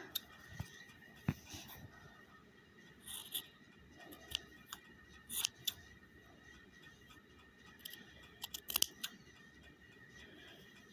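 Scissors snipping through shirt fabric in short, scattered cuts with quiet gaps between, and a quick cluster of snips about nine seconds in: trimming the edge of a hand-sewn seam.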